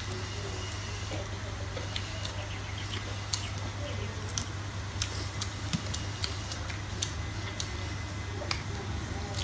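Forks and spoons clicking and tapping against plates and bowls during a meal, in short irregular clicks, over a steady low hum.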